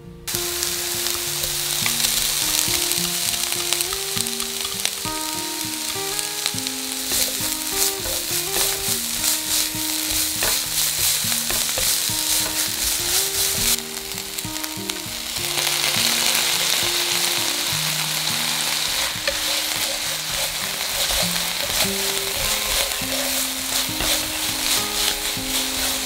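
Sliced green peppers and takana pickled mustard greens sizzling in sesame oil as they are stir-fried in a frying pan, with the stirring mixed into the sizzle. The sizzle dips briefly about halfway through, then comes back. Soft background guitar music plays underneath.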